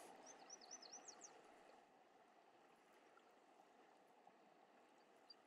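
Near silence: faint steady flow of the river, with a quick series of about six faint high bird chirps in the first second or so.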